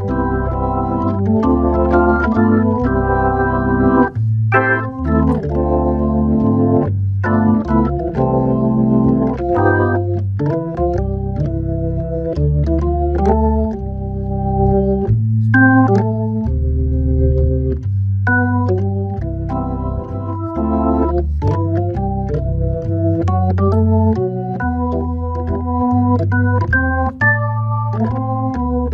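Hammond B3 tonewheel organ played solo in a jazz waltz: chords and melody in the upper register over low bass notes that change about once a second, with crisp clicks at the note starts.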